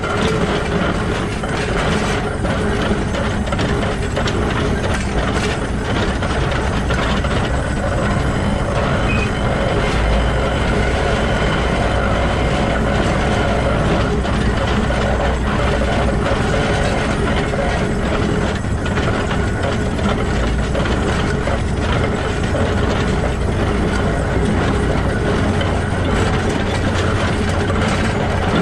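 Shay geared steam locomotive SL-31 running, heard right at its truck: the exposed bevel gears meshing and the wheels rolling on the rails, a steady, dense mechanical clatter of rapid ticks.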